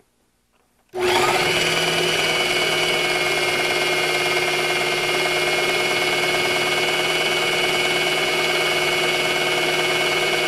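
Electric food processor switched on about a second in, its motor running steadily with a constant whine as it blends a ricotta cream mixture.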